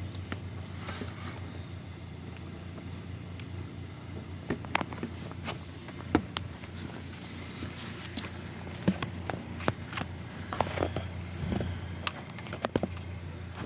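Irregular light clicks and knocks, as of hands and tools working around a car's engine bay, over a steady low hum.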